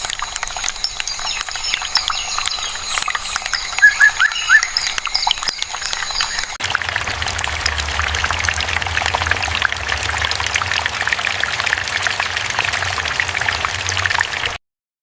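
Many small birds chirping and chattering together in a dense stream of short calls. After a cut about halfway through, a low hum sits underneath, and the sound stops abruptly near the end.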